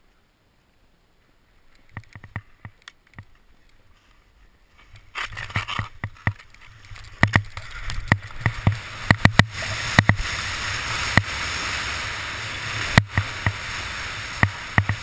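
Skis sliding down steep snow. Quiet at first with a few clicks, then from about five seconds in a steady rush of skis running over snow, broken by many sharp knocks and clatters.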